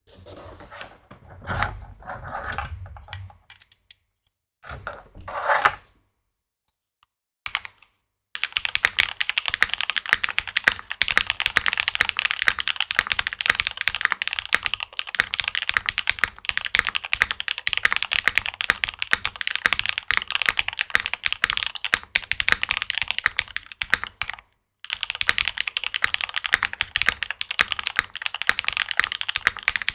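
Monokei Kei R2 mechanical keyboard with lubed switches being typed on. After some scattered quieter sounds and a brief pause, fast continuous typing starts about eight seconds in and runs on with one short break near the end.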